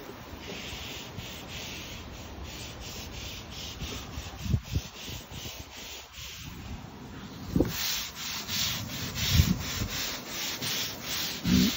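Stiff-bristled deck brush scrubbing composite decking in quick back-and-forth strokes, about two to three a second, getting louder in the last few seconds. A few dull thumps come through in the second half.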